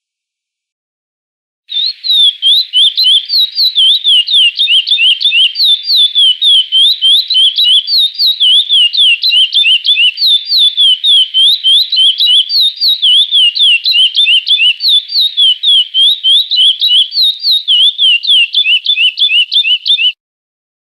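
Chestnut-bellied seed finch (curió) singing the 'Praia Clássico' song: a fast, unbroken run of clear whistled notes sliding up and down, starting about two seconds in and stopping shortly before the end.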